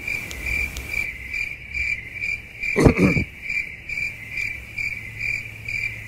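Cricket chirping in a steady rhythm, about two chirps a second, with a brief low thump about three seconds in.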